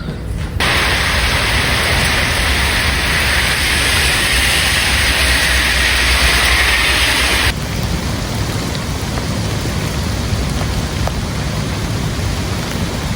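Heavy downpour from a severe thunderstorm: a loud, even hiss of rain with a low rumble underneath. It grows suddenly louder and sharper about half a second in, then falls to a softer steady hiss about seven and a half seconds in.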